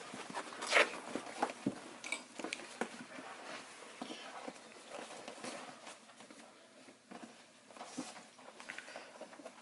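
Scattered handling noises from gaming-chair parts being worked on during assembly: small clicks, knocks and rustles, with the loudest knock about a second in.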